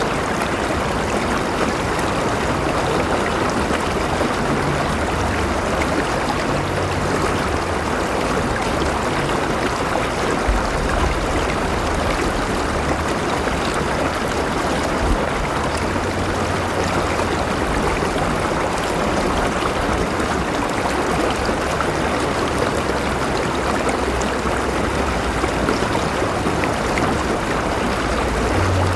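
River water flowing steadily over rocks, an even rushing babble with a low rumble underneath.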